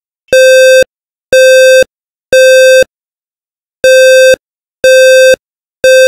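First Alert PC1210V smoke alarm sounding its alarm in the temporal-three pattern: three buzzy half-second beeps a second apart, a pause, then three more. This is the standard smoke/fire evacuation signal.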